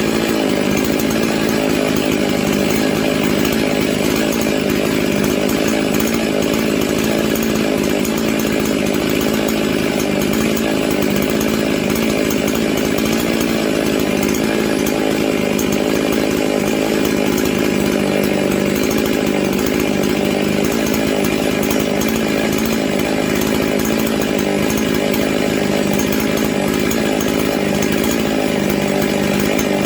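Husqvarna 55 two-stroke chainsaw running steadily at an even speed with no revving. It is being left to run to see whether it still cuts off, and it keeps running.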